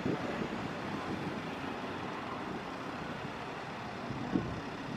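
Airbus A330neo's Rolls-Royce Trent 7000 jet engines running at climb power, a steady distant roar. A couple of brief gusts of wind buffet the microphone, one right at the start and one about four seconds in.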